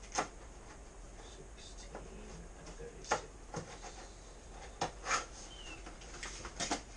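Irregular sharp clicks and light knocks, about half a dozen spread over several seconds, from small evidence items and packaging being handled at a desk.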